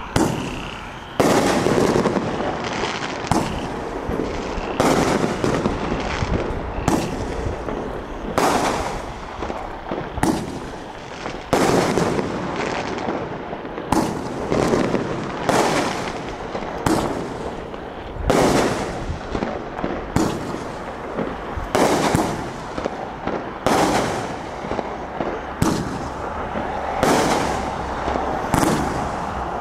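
A 12-shot consumer firework cake (Atomic Cannon) firing: the lit fuse hisses briefly, then a steady sequence of sharp bangs, roughly one every one to two seconds, as tubes launch their shells and the shells burst into glitter and brocade overhead.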